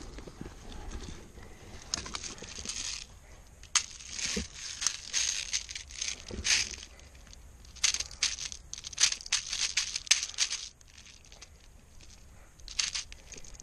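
Footsteps crunching over dry ground, with gear rustling: irregular clusters of crunches, thickest in the middle and dying down about three-quarters of the way through.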